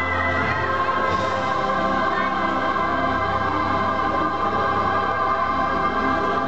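Choir singing a Christian worship song with organ, holding one long sustained chord.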